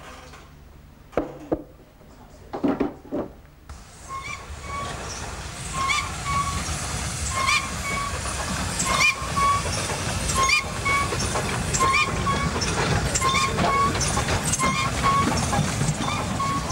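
A train running along the track: a steady rumble sets in about four seconds in, with short squeaks repeating about once a second over it. Before that, only a few brief, quieter sounds.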